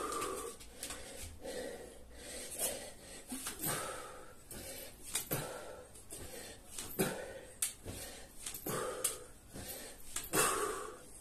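A man breathing hard and wheezing, with a loud breath every second or two, winded from a set of burpees and kettlebell swings.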